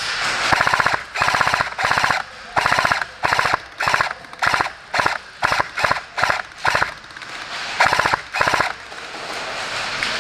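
Airsoft M249 Mk46 electric support gun firing about fourteen short automatic bursts in quick succession, each a rapid rattle of shots, with a brief pause before the last two bursts.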